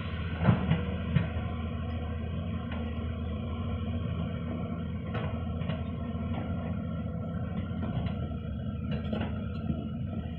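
Diesel engine of a digging machine running steadily, with a few sharp knocks in the first second or so and fainter ones later.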